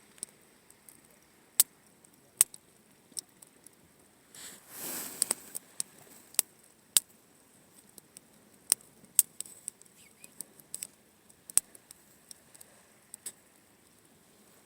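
Wood campfire crackling, with irregular sharp pops and snaps from the burning wood and a brief whooshing swell about four and a half seconds in.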